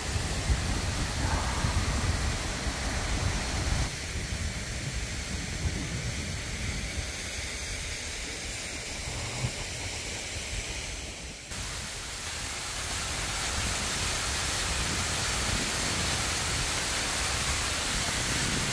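Steady outdoor background noise, an even hiss with no distinct events, changing abruptly in level about 4 seconds and again about 11 seconds in.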